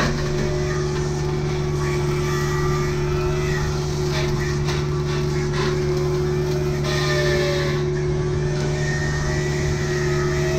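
Kubota U55-4 mini excavator's diesel engine running steadily while working a hydraulic brush cutter, with a fainter whine over it that shifts up and down in pitch.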